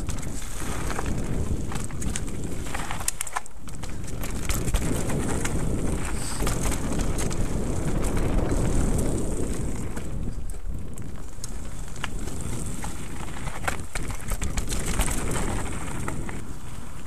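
Mountain bike descending a dirt singletrack at speed: tyres rolling over packed dirt and dry leaves, with frequent sharp rattles and knocks from the bike over bumps, under a steady rush of wind on the microphone.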